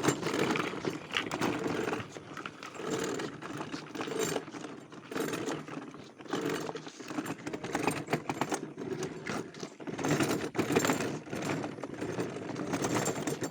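Small electric motor and gearbox of a ride-on toy car running, with rattling and clicking, swelling and easing every second or two as the car goes and slows.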